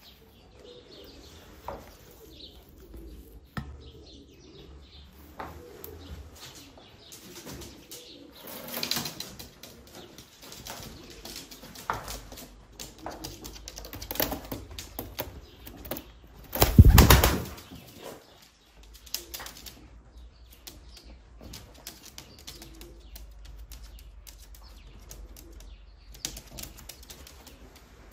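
Tumbler pigeons flapping their wings: scattered bursts of wingbeats and scuffling, with one loud burst of flapping a little past the middle.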